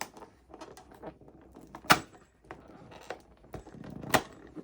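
A cardboard cat advent calendar being opened and its toy handled: light rustling and clicking, with two sharp snaps, about two seconds in and about four seconds in.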